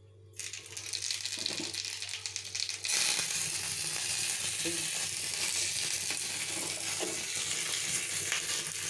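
Tempering for curd: dried red chillies and spices frying in hot oil in a small pan. It starts as a light crackle and turns into a loud, steady sizzle about three seconds in.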